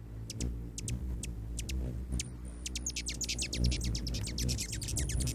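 Small birds chirping in many short, quick tweets that get denser about three seconds in, over a low steady rumble.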